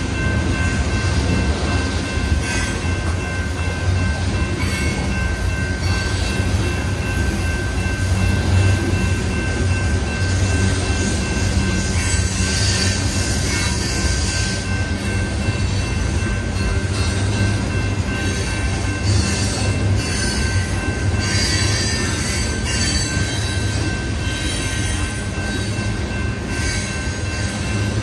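Union Pacific coal train's hopper cars rolling steadily past at a grade crossing: a continuous heavy rumble of wheels on rail, with steady high-pitched ringing tones over it.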